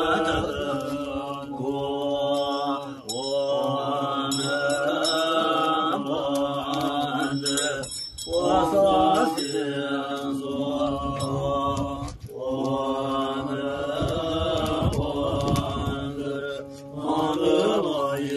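Tibetan Buddhist monks chanting a mantra in long, steady melodic phrases over a low droning pitch, with short breaks between phrases. Faint high ringing tones sound in the first half.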